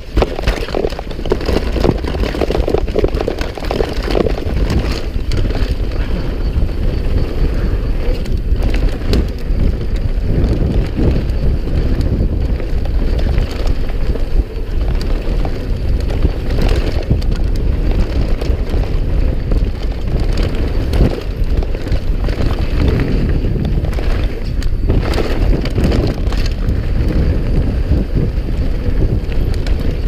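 A mountain bike rolling fast down a rocky dirt trail: tyres crunching over dirt and stones, with a constant run of rattles and knocks as the bike hits bumps, under a low rumble of wind on the microphone.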